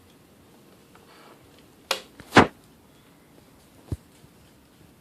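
A few sharp clicks and knocks from the plastic parts of a VHS camcorder as parts are fitted on it: two loud ones close together about two seconds in, and a smaller one near the end.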